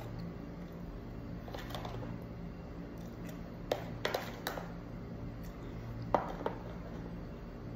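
Red plastic spoon scooping from a clear plastic tub, with a few scattered light clicks and taps as it scrapes and knocks against the tub, over a low steady hum.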